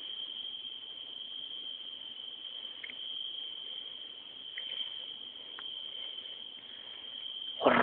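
A cricket trilling steadily on one high pitch, with a few faint ticks of rustling. Right at the end a loud sudden noise starts.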